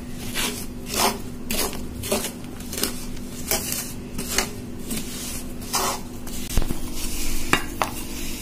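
Wooden spatula scraping and stirring through gram flour and powdered sugar in a metal pan, in repeated strokes a little under two a second.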